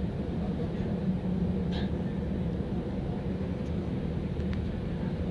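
Steady running noise of a Bombardier Talent 2 (DB class 442) electric multiple unit at speed, heard inside the passenger compartment: an even low hum and rumble of the train running on the rails.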